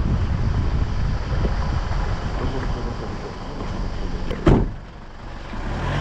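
Vehicle engine running with a low rumble, and a single sharp knock about four and a half seconds in.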